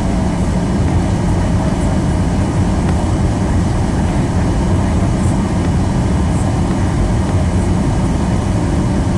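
Cabin noise of a Southwest Boeing 737 taxiing: a steady low rumble of the jet engines at taxi power and the wheels rolling over the concrete taxiway, heard from inside the passenger cabin.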